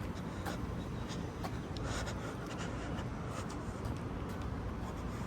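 Air-conditioning condensing units running with a steady low hum, with light irregular rustling and footsteps over it.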